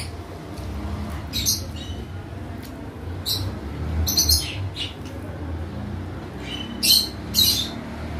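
Pet birds squawking: short, harsh calls a second or two apart, several in a row, over a steady low rumble.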